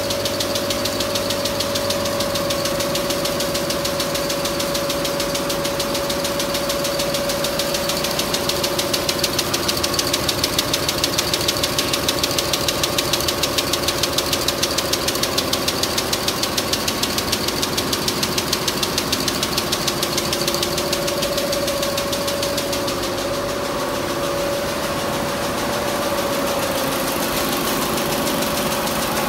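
Richpeace multi-needle quilting machine running at 400 rpm, its rows of needles stitching in a rapid, even clatter over a steady hum.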